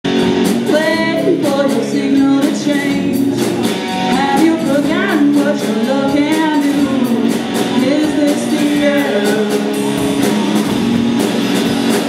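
Live rock band playing a dream-pop song: sung vocals over a strummed guitar and a drum kit.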